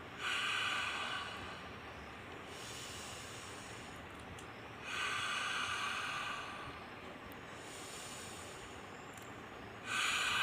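A person doing lion's breath (simhasana pranayama), breathing out hard through the open mouth with the tongue stretched toward the chin. The long, hissing exhalation comes three times, about five seconds apart.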